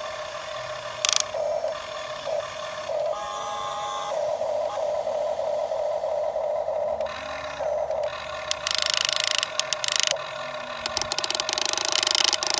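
Small electric motors of a radio-controlled model excavator whining steadily at one pitch, with several louder, harsher bursts of noise in the second half as it works.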